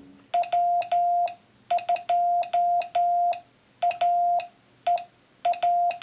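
Morse code sent by hand on a straight key: a steady mid-pitched sidetone keyed on and off in short dits and long dahs, with a click at the start and end of each element. The five groups spell the callsign W2AEW (.-- ..--- .- . .--).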